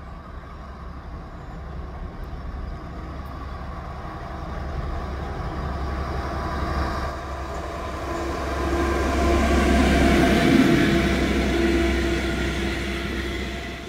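DE6400 diesel-electric locomotive pulling away with two passenger coaches, its diesel engine working. It grows louder as it approaches, is loudest as it passes close by about ten seconds in, then fades as the coaches roll past on the rails.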